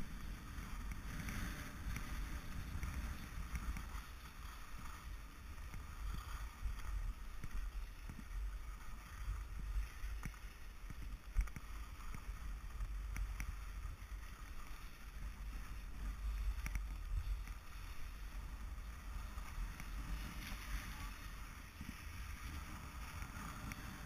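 Skis sliding and scraping over packed snow, with wind buffeting the camera microphone in a low, uneven rumble. A single sharp knock about eleven seconds in.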